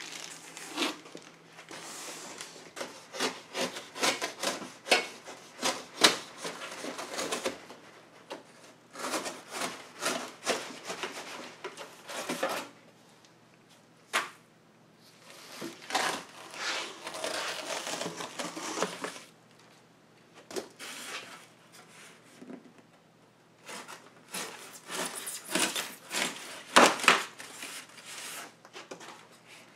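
Cardboard shipping box being cut down and torn open with a blade: irregular scraping and ripping of cardboard in bursts with a few pauses and sharp snaps. Near the end the blade and hands work against styrofoam packing.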